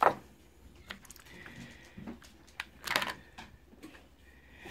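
Handling noise from items being picked up and set down on a wooden table: a sharp knock at the start, then a few light clicks and taps.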